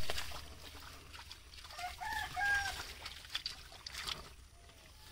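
A rooster crowing once, about two seconds in, a short call in a few held notes.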